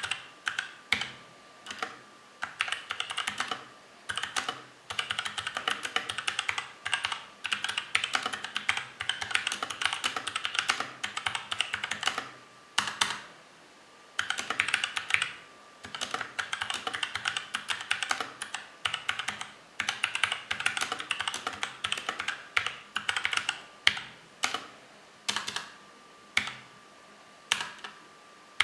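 Mechanical keyboard with tactile Outemu Sky switches, lubed with Krytox 104 but with the springs left unlubed, being typed on quickly. The keystrokes come in runs of rapid clicks lasting a few seconds each, broken by short pauses.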